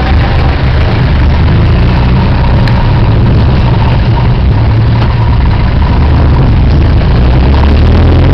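Engine and road noise of a moving vehicle heard from on board: a loud, steady low rumble that holds an even pace.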